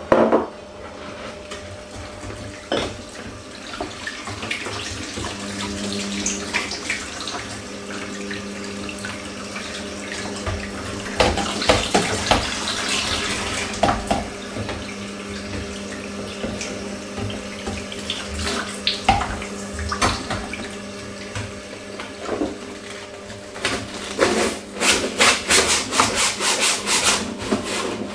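Water running from a tap into a stainless steel kitchen sink, with scattered clinks. Near the end, quick repeated strokes of a brush scrubbing a wire dish rack.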